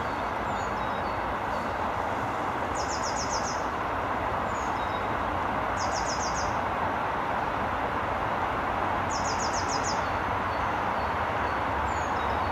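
A songbird singing a short burst of rapid repeated high notes about every three seconds, with a few faint chirps between, over a steady distant roar that grows slightly louder.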